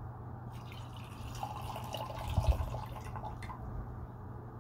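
Liquid poured in a thin stream into small gongfu teaware for about three seconds, starting about half a second in, with a light knock partway through.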